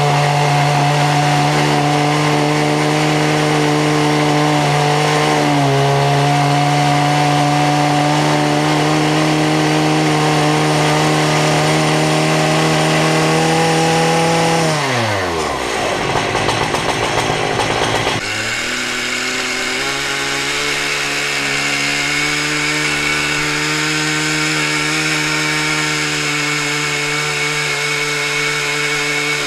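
Two 120cc two-stroke Stihl chainsaws (an 084 and an MS-880) run together at high revs on a dual-ended chainsaw mill, ripping a beech log. Part way through, the engine pitch falls away steeply as the saws slow. It then cuts abruptly back to a steady sawing note that holds to the end.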